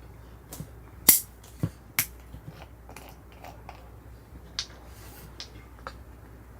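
Burning firewood crackling, with about half a dozen sharp, irregular pops, the loudest about a second in, over a steady low rumble.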